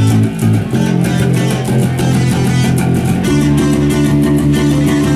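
Electric guitar and bass guitar playing a loud rock riff with a steady strummed rhythm. The chord changes about a second in and again past the middle.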